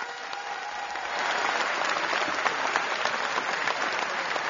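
Audience applauding: the clapping swells about a second in and then holds steady.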